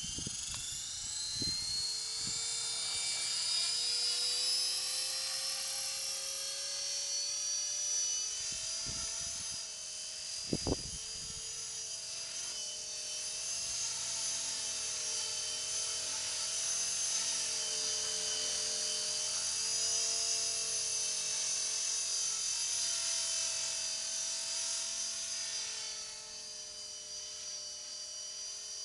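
Esky Belt CP V2 electric radio-controlled helicopter spooling up from the ground: its motor and rotor whine climbs in pitch over the first few seconds, then holds as a steady high whine that shifts a little with throttle while it flies. A few short thumps, the loudest about ten seconds in.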